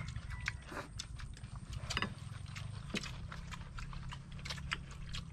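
Eating utensils clicking and tapping against bowls during a meal: scattered light clicks, a few each second, over a low steady hum.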